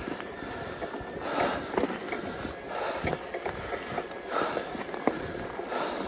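A person breathing hard in a steady rhythm, about one breath every second and a half, with a few small clicks in between.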